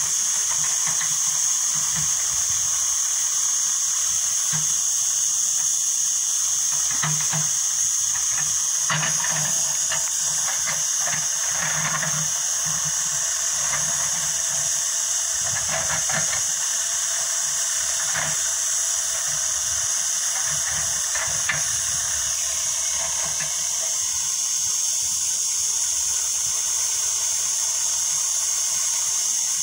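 Loud steady high-pitched hiss, with a distant backhoe loader's engine rising and falling faintly underneath as it works the ground.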